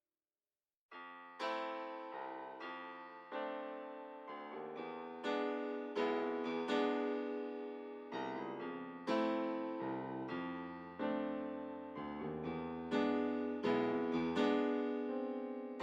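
Background music: a solo piano or electric piano playing slow struck chords, each one fading before the next. The music comes in about a second in, after a moment of silence.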